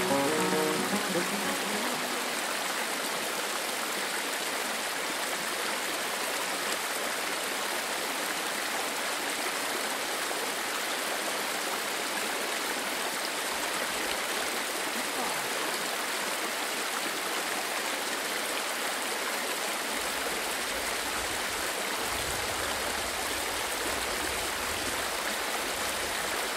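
Steady rush of flowing stream water, an even hiss with no separate events. A low rumble joins in about twenty seconds in.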